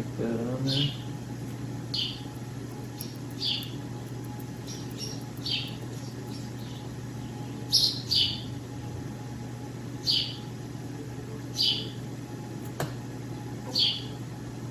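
Small birds chirping: short, high, downward-sliding chirps repeated every second or two, over a steady low hum.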